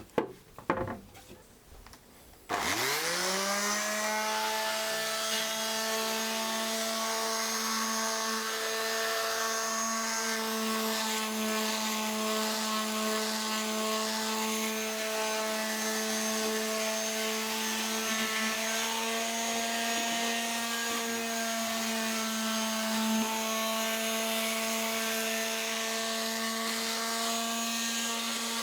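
A couple of knocks, then an electric sander switches on about two and a half seconds in, spins up quickly and runs at a steady pitch, sanding down varnished wood between coats.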